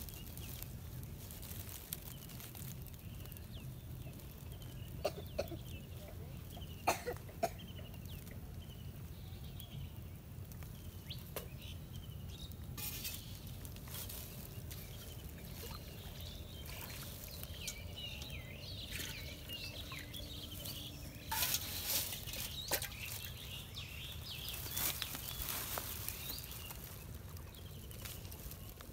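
Small birds chirping over a low steady background rumble, with water splashing and sloshing in a metal pot and a few sharp knocks of handling now and then, the loudest cluster a little past the middle.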